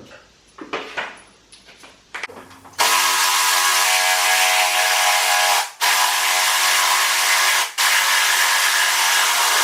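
Impact gun running in a long loud stretch, its trigger let off briefly twice. A few clicks and knocks of tools being handled come just before it starts, a little under three seconds in.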